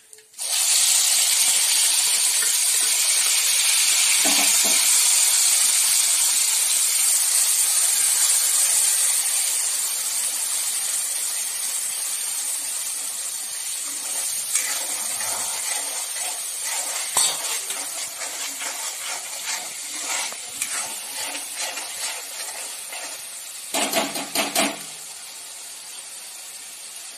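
Wet ground onion-coconut masala paste dropped into hot oil in a kadhai, sizzling loudly from about half a second in; the sizzle slowly dies down as it fries. Scattered spatula scrapes and taps on the pan, with a cluster of knocks near the end.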